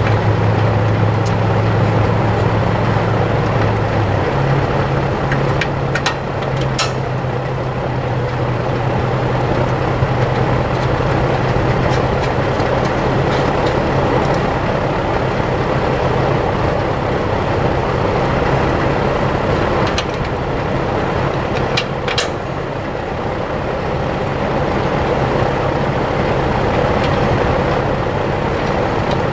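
An engine running steadily, its low hum stepping up in pitch about four seconds in. A few short, sharp clicks come about six and about twenty-two seconds in.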